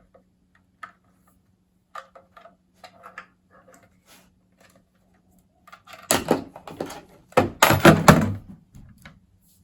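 Handling noise from unpacking a tool kit: scattered small clicks and taps. About six seconds in comes a couple of seconds of louder clattering and rustling as the charger and its packaging are moved about.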